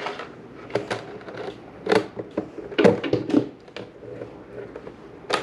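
Irregular small clicks and knocks from hands working the flex cable and collet on an RC boat's drive line, about seven separate taps spread unevenly.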